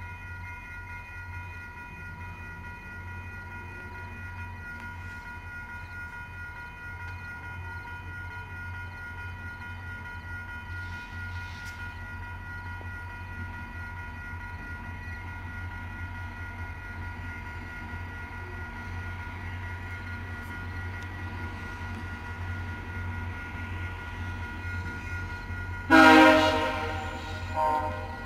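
An approaching VIA Rail passenger train heard as a steady low hum, then near the end its locomotive horn sounds loudly: a longer blast followed by a short second one.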